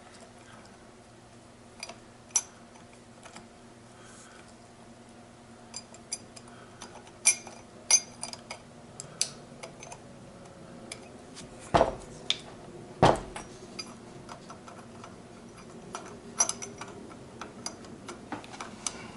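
Steel gearbox parts clinking and clicking as the 1-2 synchro hub, its baulk rings and gears are handled and fitted together, with two heavier knocks about twelve and thirteen seconds in.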